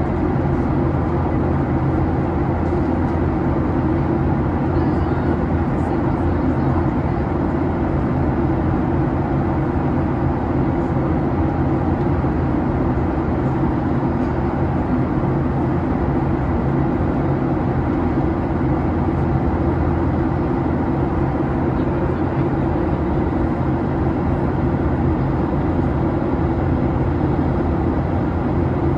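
Steady low drone of cabin noise inside a Boeing 737-800 airliner, its CFM56 turbofan engines running, unchanging throughout.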